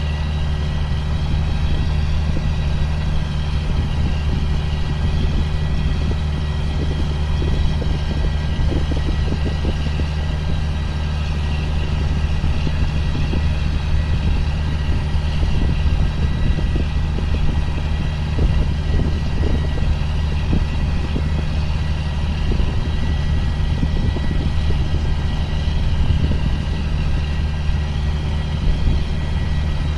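A 2005 John Deere field sprayer's engine running steadily at working speed: a constant low drone with a faint steady high whine above it.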